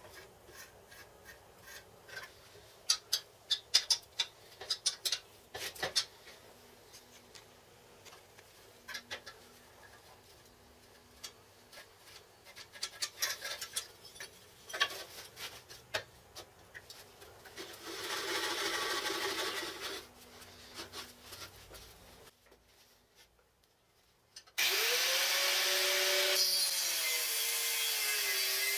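Clicks, knocks and a brief scraping noise of steel parts being handled and clamped in a vise. Near the end, an angle grinder with a cut-off disc starts suddenly with a rising whine, and its pitch sags as the disc bites into the steel and cuts.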